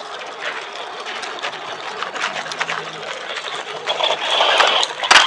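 Electric motor of a Tygatec Supersonic RC monster truck running under load while towing a trailer of stones, its tyres crunching and ticking over gravel. About four seconds in the motor's whine grows louder, and the sound ends in one sharp click.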